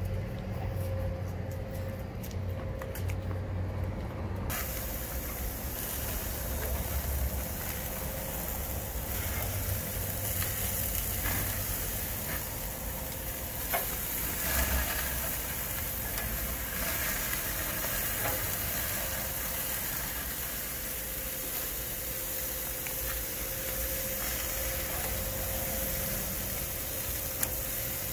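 Marinated pork barbecue skewers sizzling on a gas grill, a steady hiss that cuts in suddenly about four seconds in after a low rumble. A few sharp clicks come as tongs turn the skewers.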